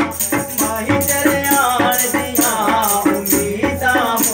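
A man singing Punjabi mahiya folk couplets in a wavering melodic line, accompanied by a hand tambourine whose jingles keep a steady rhythm of about four strokes a second.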